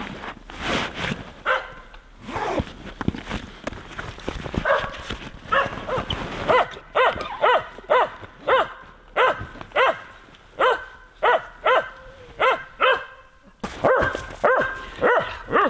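Hunting dog barking and yelping over and over, about two short barks a second, with a brief pause near the end. Before the barking starts, gear rustles as a backpack is packed.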